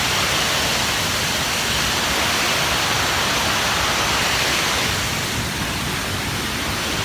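Steady rush of falling water, easing slightly near the end.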